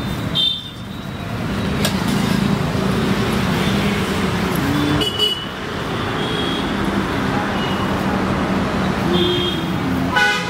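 Steady road traffic noise from passing vehicles, with a short horn toot near the end.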